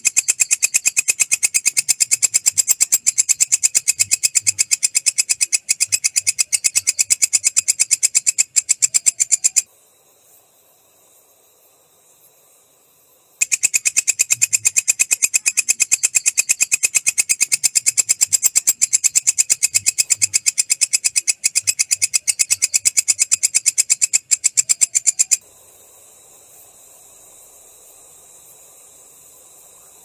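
Walang kecek katydid (a green bush cricket) stridulating: a shrill, rapid, even train of pulses that runs for nearly ten seconds, stops for a few seconds, then runs again for about twelve seconds and stops, leaving a faint steady hiss.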